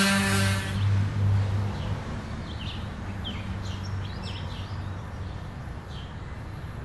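A power tool's whine cuts off just after the start and a low hum dies away over about a second, leaving steady outdoor background noise with birds chirping in short high calls.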